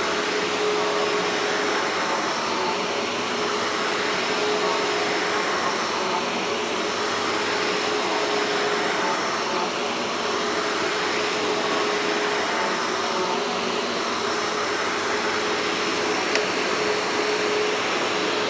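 Hoover Hushtone vacuum cleaner running steadily on its commercial carpet-height setting: an even rush of airflow with a steady motor hum.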